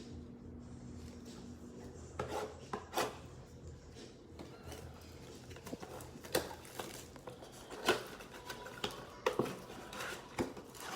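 Packaging being handled as a trading-card blaster box is opened: irregular crinkling crackles and light taps of plastic wrap and cardboard, starting about two seconds in. A faint low hum runs underneath at first and stops about two seconds in.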